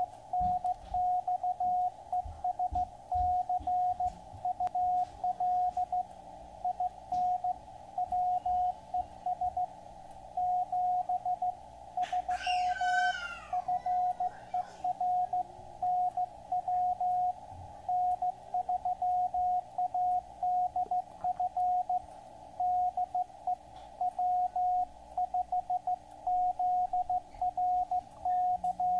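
Morse code (CW) signal on the 20-metre band received through an Elecraft KX3 transceiver: one steady beep tone keyed on and off in dots and dashes over faint band hiss. About twelve seconds in, a brief falling whistle with overtones sweeps down across the Morse.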